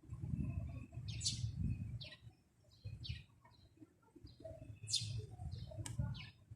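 Small birds chirping in short, separate high calls, about five in a few seconds, over an uneven low rumble.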